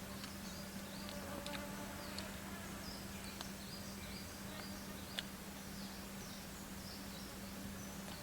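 Rainforest ambience: wildlife giving a run of short, high, falling chirps over a steady low hum, with a few sharp clicks.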